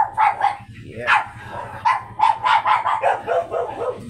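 Small dog barking in quick runs of sharp, high-pitched yaps, about a dozen in all, with a short pause about a second in.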